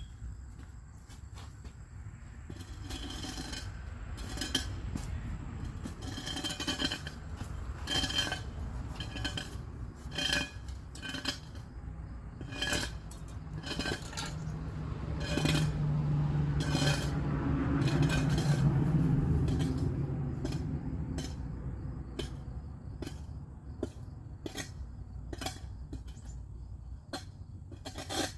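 Metal hand tools knocking and clinking irregularly while rotted wood is worked out, each strike with a short metallic ring. A low hum swells and fades about halfway through.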